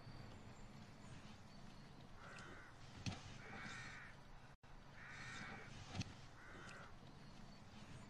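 Crows cawing faintly: four short, harsh caws in two pairs, over a low steady background rumble. Two sharp clicks, about three and six seconds in, are the loudest sounds.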